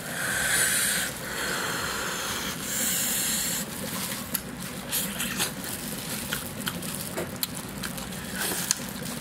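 Plastic gloves rustling and crinkling as cooked crocodile meat is pulled apart, then scattered sharp clicks and smacks of tearing and biting into the meat.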